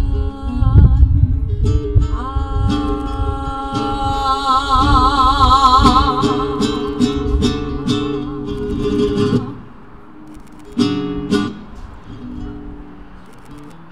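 Flamenco crossover music: guitar and percussion under a voice singing one long note with a wide vibrato. About ten seconds in the music drops much quieter, leaving guitar with a couple of sharp strikes.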